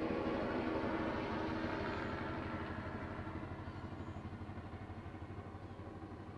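Light news helicopter with a two-bladed main rotor passing overhead: its rapid, steady rotor chop and engine noise fade gradually as it flies away.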